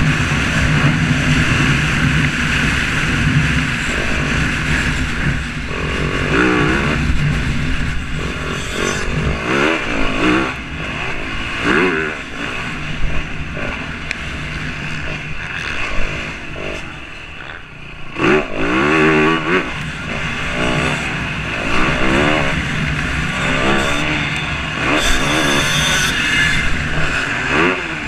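Motocross dirt bikes riding around a track, engines revving up and falling back again and again over a steady drone of bikes further off.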